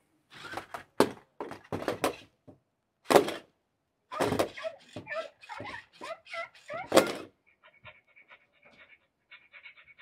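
VEVOR robot dog toy playing a run of short breathy, panting-like dog sound effects from its built-in speaker as it goes through a trick, the loudest about one, three and seven seconds in. Fainter quick electronic chirps follow near the end.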